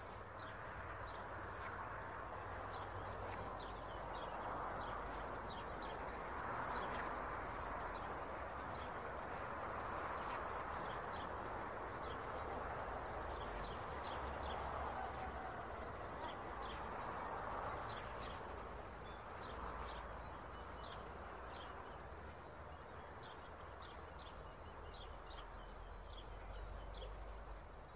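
Small birds chirping in short, repeated high notes over a rushing hiss that swells and fades every two to three seconds, with a low rumble underneath. The chirps come more often in the second half.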